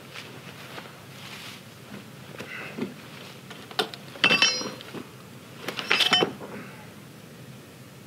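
Footsteps on grass, then a steel pry bar clanking and scraping against the sawmill's steel carriage track twice, about four and six seconds in, each with a short metallic ring, as the track is levered over into alignment.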